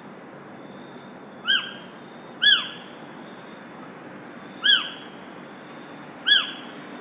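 A bird giving a short, loud call four times, each note rising and then falling in pitch, over a steady background hiss.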